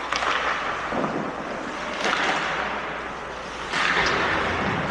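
Game play echoing in an arena: a steady din with several sharp knocks and clacks, each under a second apart.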